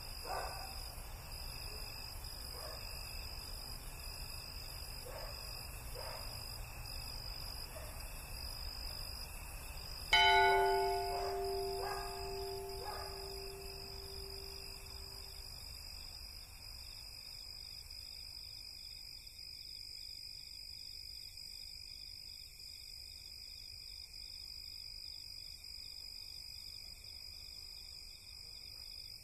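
A sudden loud metallic strike about ten seconds in, ringing on like a bell in several tones and fading over about five seconds, with a few lighter strikes just after it. Under it, a steady high-pitched chirring of night insects.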